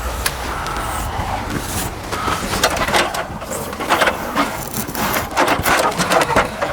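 Crackling and rustling of self-adhesive window flashing tape being handled, peeled and pressed on, coming thick and uneven from about two seconds in, over a low rumble at the start.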